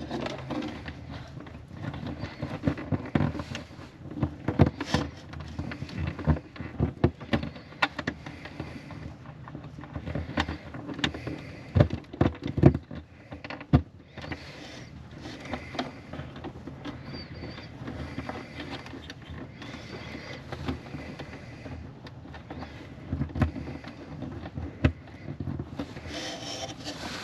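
Hand-work on wiring: irregular clicks, knocks and scraping as the outlet leads are handled and routed, with a few louder knocks about halfway through.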